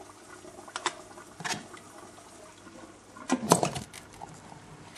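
Plastic lid of a liquid-nitrogen cryochamber tank handled and set onto the tank: a few light clicks, then a louder cluster of knocks about three and a half seconds in as it seats.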